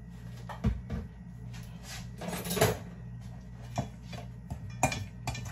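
Scattered knocks and clicks of kitchen items being handled on a counter, about half a dozen, with a low steady hum underneath.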